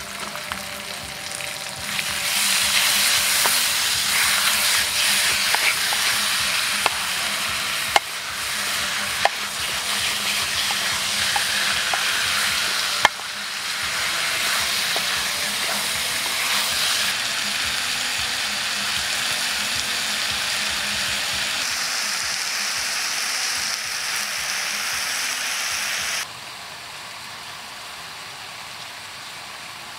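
Meat and vegetables sizzling loudly in a hot wok over a portable gas stove while a wooden spatula stirs them, with a few sharp knocks of the spatula against the pan. The sizzle rises strongly about two seconds in and drops to a softer sizzle near the end.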